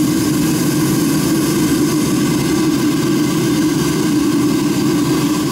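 A home-built foundry furnace's burner running at full fire, a steady hiss over a low hum, as the furnace heats up to melt brass.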